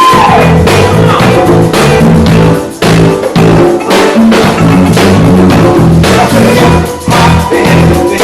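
Live band playing an instrumental passage: drum kit keeping a steady beat with electric guitar and a stepping bass line.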